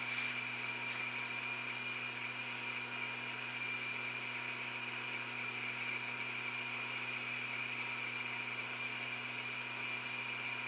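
Logan metal lathe running steadily under power feed while a boring bar takes a light cut inside a cast iron chuck back plate. It makes a constant hum with a steady high whine over it, unchanging throughout.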